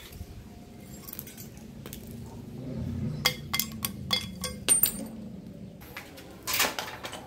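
Steel bicycle headset parts (bearing retainer and cups) clinking together as they are handled: a quick run of sharp metallic clicks about three to five seconds in, then a brief scrape near the end.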